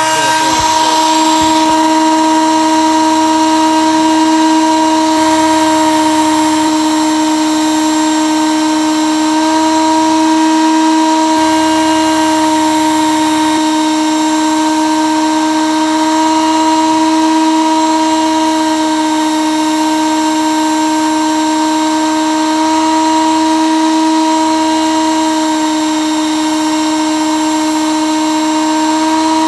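Electric belt knife sharpener running on its fine finishing belt, its motor giving a loud, steady whine while a knife is held against the moving abrasive belt at the angle set by its guide base.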